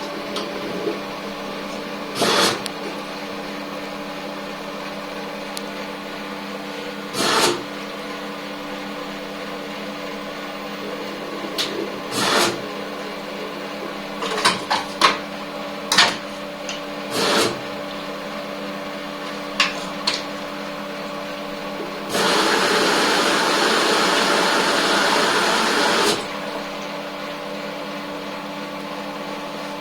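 Washing machine running with a steady hum, broken by scattered knocks and clicks. About 22 seconds in, a louder rushing noise comes in and stops after about four seconds.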